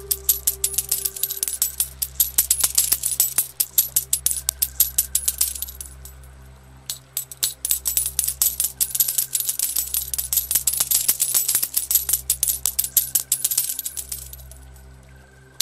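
A shower of coins clinking and jingling in rapid succession over a soft, sustained music drone. The clinking fades out about six seconds in, starts again a second later, and fades out again near the end.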